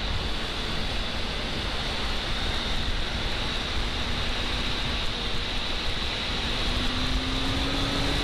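Wind rushing over the microphone on a Honda CBR600F riding at road speed, with the inline-four engine's steady drone faint underneath, rising slightly in pitch near the end.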